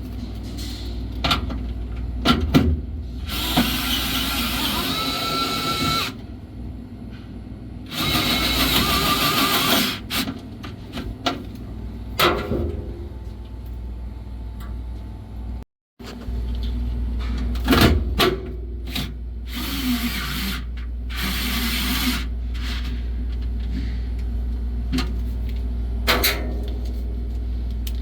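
Vessel 220USB-P1 cordless electric screwdriver on its high-speed setting driving screws in several short runs of one to a few seconds each, with clicks and knocks of handling between them, over a steady low hum.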